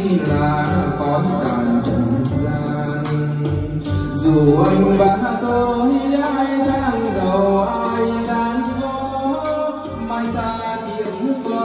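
Karaoke song playing loud through a pair of JBL 4012 loudspeakers: a backing track with a sung melody line.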